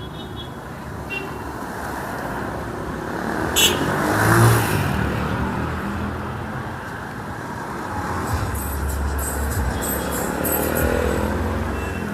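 Street traffic: a car passes close by, loudest about four and a half seconds in, then engines keep running at low speed.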